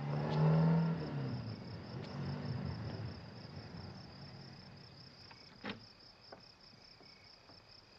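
Crickets chirping in a steady pulsing trill, with a car engine fading away in the first second or so. A single sharp click a little past halfway, from a door latch as the door is opened.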